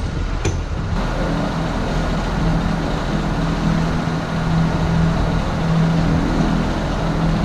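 Machinery running steadily: a low, even hum under a broad steady noise, with one sharp click about half a second in.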